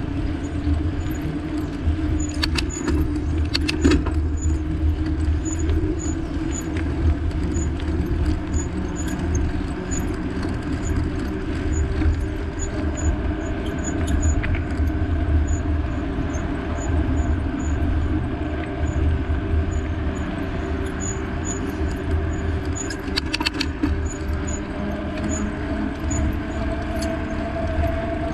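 Road vehicle running steadily, with a heavy low rumble and an engine tone that climbs slowly through the second half. Brief clusters of clicking rattle come twice: a few seconds in and near the end.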